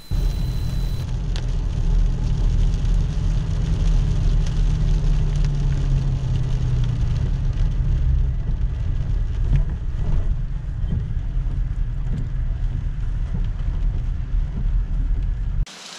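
Vehicle driving on a wet road in the rain, heard from inside the cabin: a steady low road and engine rumble with rain on the glass. It cuts off abruptly near the end.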